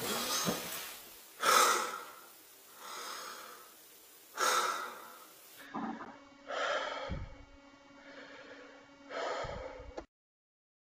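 A man breathing hard in loud gasps, about one breath every second and a half, after waking from a nightmare. The sound cuts off shortly before the end.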